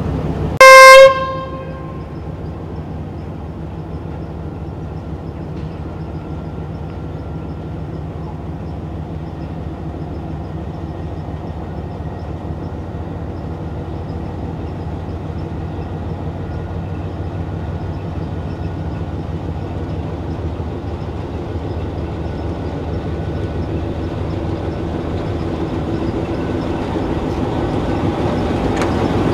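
Narrow-gauge diesel locomotive sounds one short, loud horn blast about a second in. Its engine then runs steadily, growing louder near the end as it pulls its passenger coaches closer.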